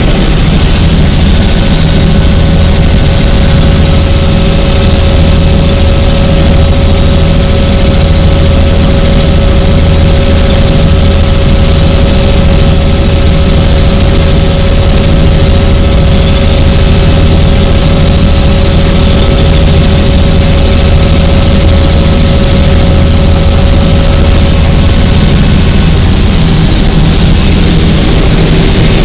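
Helicopter in steady flight: a loud, unchanging engine and rotor drone with a steady high whine over it.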